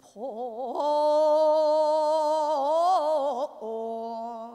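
Female pansori singer drawing out the phrase 'gwaneum bosal' in a long melismatic line. It opens with a wide vibrato, holds a steady note for nearly two seconds, wavers through a turn, and settles on a lower held note near the end.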